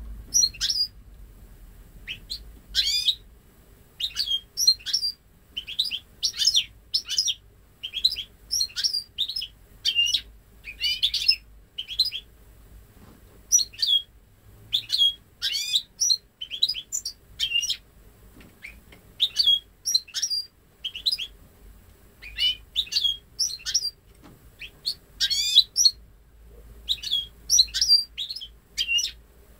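Goldfinch × canary hybrid (goldfinch mule) singing: short, quick clusters of high twittering, sweeping notes, about one or two clusters a second with brief gaps. The phrases are entirely goldfinch-style song, as the bird has never heard a male canary.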